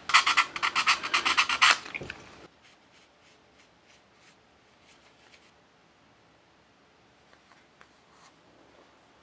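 Small piece of sandpaper rubbed in quick back-and-forth strokes, about six a second, along the edge of a thin wooden ship-model part; it stops after about two seconds, leaving faint rustles and light ticks as the wooden piece is handled.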